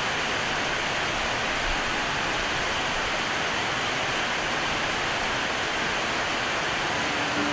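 Steady rain falling on corrugated metal roofing, an even hiss with no single drops standing out.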